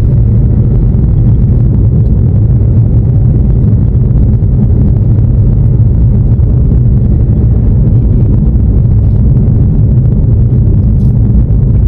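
Steady low rumble of a car being driven, with engine and road noise heard from inside the cabin.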